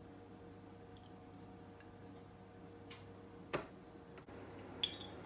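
Faint, scattered clicks and taps from a teaspoon and sauce bottle handled over a bowl, about four in all, the sharpest about three and a half seconds in, over a steady low hum.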